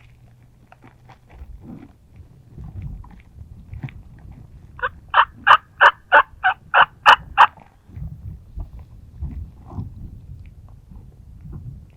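Turkey yelping: a run of about ten loud, evenly spaced yelps at roughly four a second, starting about five seconds in and lasting under three seconds, with fainter scattered calls before and after.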